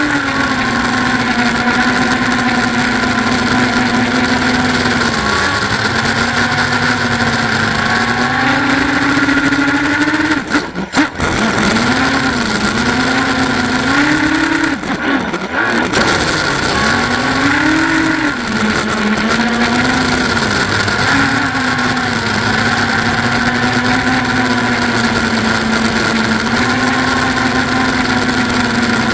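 Eachine Wizard X220 quadcopter's brushless motors and propellers whining, the pitch swooping up and down with throttle. The sound drops away briefly twice near the middle.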